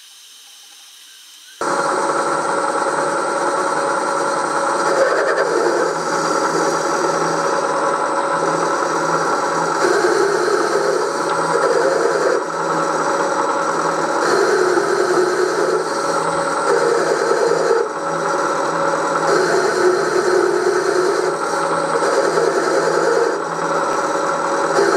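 Bridgeport milling machine running, its end mill side-cutting the profile of a cast iron cylinder cover: a steady machine hum with a cutting noise that grows louder and softer every second or two. It starts abruptly about a second and a half in.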